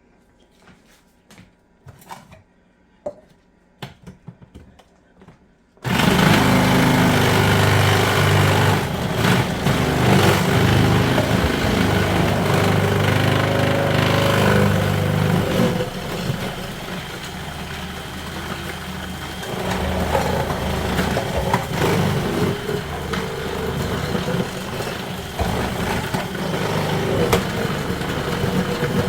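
A few light clicks of handling, then about six seconds in an electric kitchen machine fitted with a grater attachment switches on and runs, shredding onion. The motor sounds heavier at first and lighter and uneven later as the load changes.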